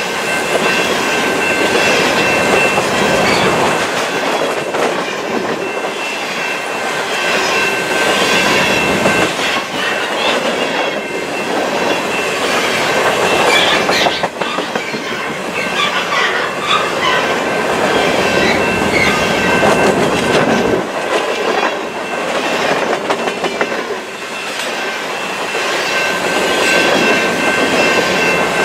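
Freight train's cars rolling steadily past: continuous rumble and clatter of steel wheels on the rails, with scattered high squeals from the wheels and a steady high-pitched squeal near the start and again near the end.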